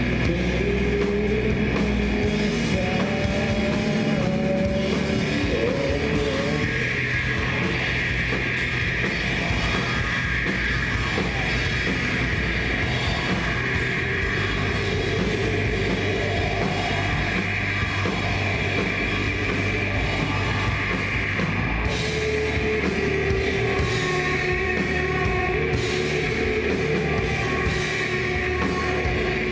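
Live rock band playing: electric guitar, bass guitar and drum kit in a full, steady mix, with a melodic guitar line near the start and again in the second half.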